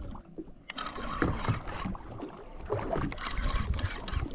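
Water sloshing against a small boat's hull with wind rumbling on the microphone, coming in uneven surges.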